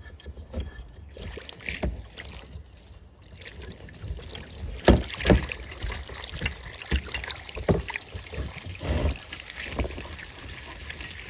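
Scattered metallic clicks and knocks of parts and hand tools being worked, over a low rumble of wind on the microphone.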